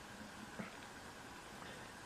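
Near silence: faint room tone with a low hiss.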